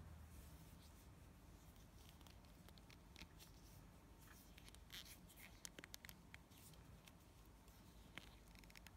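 Near silence with faint scattered ticks and rubbing: fingers handling thin fishing line while tying a knot, clustered in the middle and again near the end.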